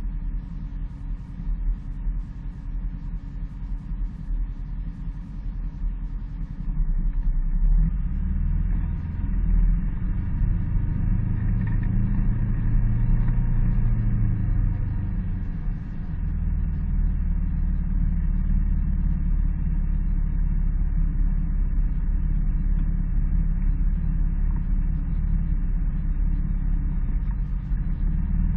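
Polaris ACE 900 side-by-side's engine and drivetrain running under way on a rocky trail, heard from on board: a steady low rumble that grows louder and fuller about eight seconds in.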